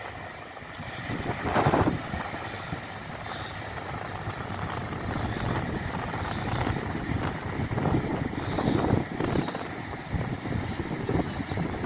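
Wind buffeting the microphone in uneven gusts, over the wash of waves breaking on a sandy beach, with a stronger gust about two seconds in.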